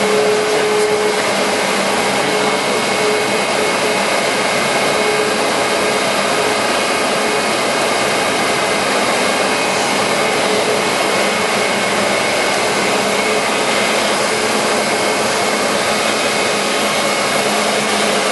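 Monarch Model 62 heavy-duty engine lathe with a 20 hp main drive motor running under power during a test cut on a piece of metal: a steady whir with a few faint steady tones that does not change.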